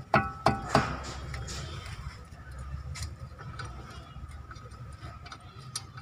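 A 12 mm spanner working the upper front brake caliper bolt on a Maruti Swift Dzire: a few sharp metallic clinks with a short ring in the first second, then scattered light ticks over a low steady rumble.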